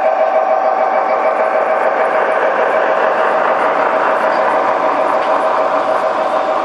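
G-scale model diesel locomotive passing close with a steady whine from its drive. Then the rolling noise of its hopper cars' wheels running over the track builds as they go by.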